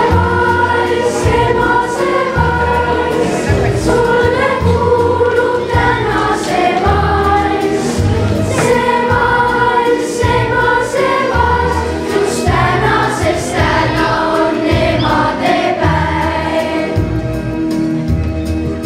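A children's choir singing a song over instrumental accompaniment with a steady bass beat.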